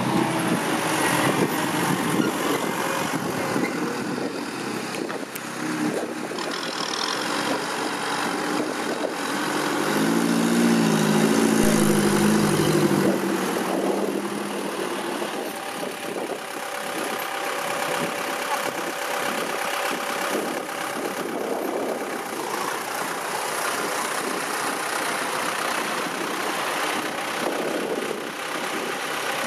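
Diesel engines of a 60-horsepower Kubota M6040SU farm tractor and a six-wheel dump truck running as they work soil. The engine note rises and grows louder about ten to thirteen seconds in, as an engine is revved under load.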